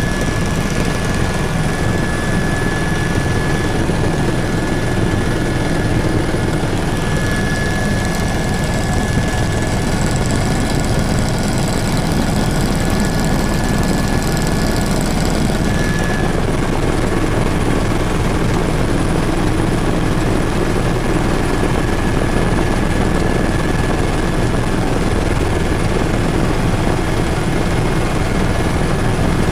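Helicopter cabin noise in level flight: the steady drone of the rotor and engine heard from inside, with a thin high whine over it.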